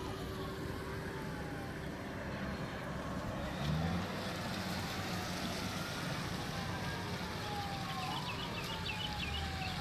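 Distant emergency-vehicle siren wailing, its pitch slowly falling and then rising again near the end, over a steady background noise.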